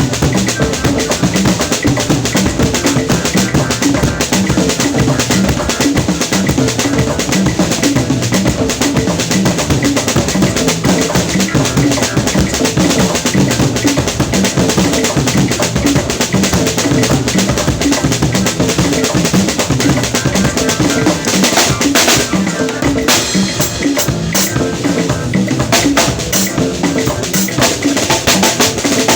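A drum kit played in a fast, busy pattern of close strokes without a break.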